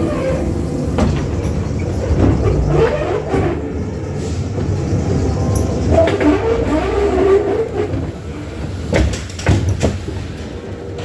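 Dark-ride car rolling along its track with a steady low rumble and a few sharp knocks and clacks.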